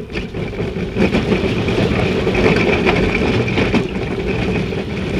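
Steel family roller coaster train running fast along the track, its wheels giving a loud steady rumble with a whine over it. The noise jumps up as the train picks up speed at the start and again about a second in.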